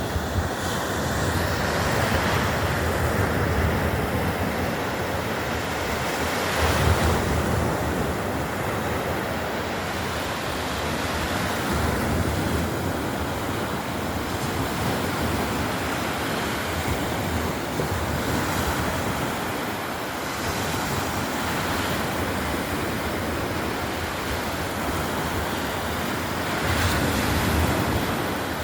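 Black Sea surf washing onto the shore in a steady rush, with louder waves breaking about seven seconds in and again near the end. Wind rumbles on the microphone underneath.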